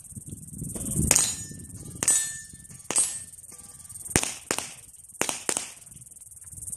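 Gunshots on a shooting range, about eight sharp cracks at irregular intervals, each with a short echo, over a steady high buzz of insects.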